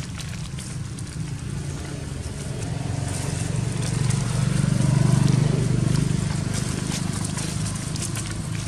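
Low engine hum of a passing motor vehicle, swelling to its loudest about five seconds in and then fading, over light crackling of dry leaves.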